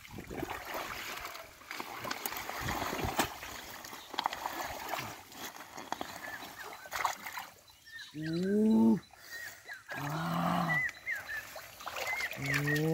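Hands splashing and squelching through shallow muddy water and water hyacinth stems while groping for catfish, with irregular small splashes and clicks. About eight seconds in, three drawn-out calls rise and fall, each lasting about a second.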